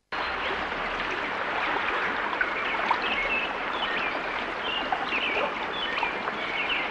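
Running water, like a stream, with short bird chirps over it; it cuts in and cuts out abruptly.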